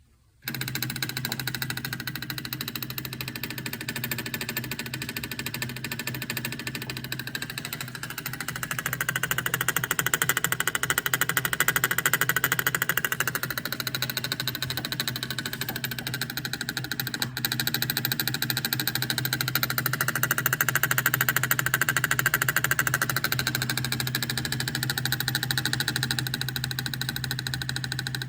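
Engine idling with the noise of a failing Delphi EGR valve, a P0404 fault in which the valve's pintle position wanders erratically. The sound starts suddenly, then over a steady low hum it grows louder twice, in two stretches of a few seconds each.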